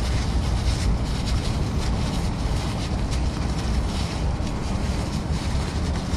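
Paper towels crinkling and rubbing as a rear differential drain plug is wiped clean, in short irregular crackles over a steady low rumble of wind on the microphone.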